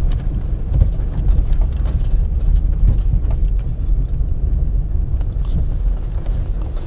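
Steady low rumble of a vehicle driving over a patched, uneven road, heard from inside the cab, with scattered small rattles and knocks.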